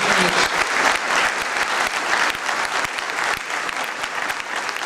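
Audience applauding: many hands clapping at once in a steady patter that eases off slightly towards the end.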